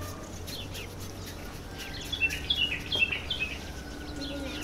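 Small birds chirping in quick, short, falling notes, busiest from about two to three and a half seconds in.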